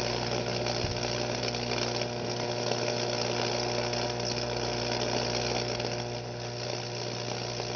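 Electric arcs at the two wire electrodes of a chicken egg carrying 15,000 volts, buzzing and crackling steadily over a steady electrical hum. The current is cooking the egg from the inside.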